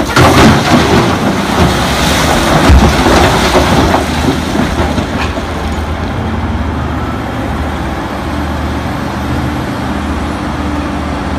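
Cat wheel loader dumping a bucket of rock into the steel bed of a Cat mining haul truck. The crash of pouring rock lasts about four seconds, then the heavy diesel engines run on steadily.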